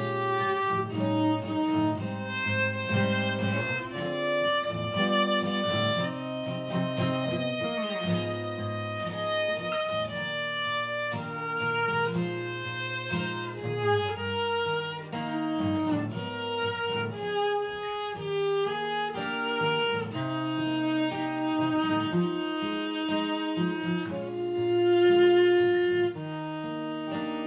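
A jazz standard played acoustically: a bowed violin carries the melody in long, sustained notes over acoustic guitar accompaniment.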